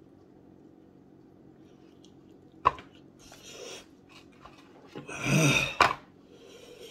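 A man breathing out hard with a loud, voiced, breathy groan about five seconds in, reacting to the burn of Blazin' hot wings; a sharp click comes about two and a half seconds in and another right as the groan ends.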